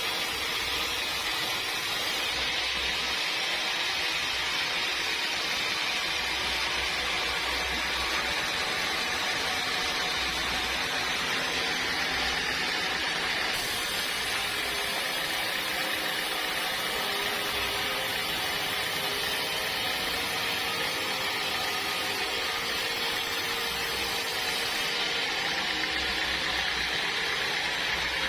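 Sawmill machinery running steadily: a continuous mechanical hiss and hum with an on-and-off low rumble.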